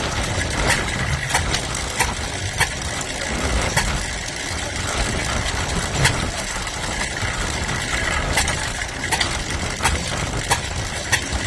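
An old engine running steadily, with sharp clicks or knocks at irregular intervals.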